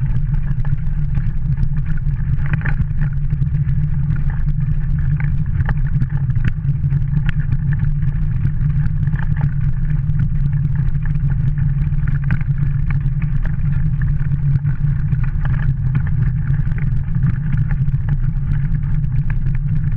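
Dog-drawn kart rolling along a dirt track: a steady loud rumble from the wheels, with many small clicks and rattles from the kart.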